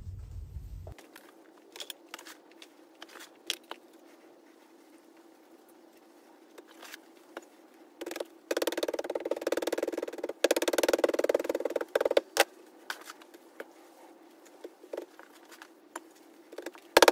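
Loose Petrobond casting sand pattering and rustling as gloved hands crumble and push it into a steel moulding flask, with scattered small knocks. It is loudest in two stretches of a couple of seconds around the middle, over a faint steady hum.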